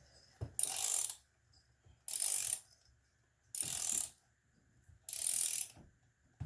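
Hand ratchet wrench being worked on a bolt, its pawl rasping through a fast run of clicks on each backswing. Four strokes come about a second and a half apart.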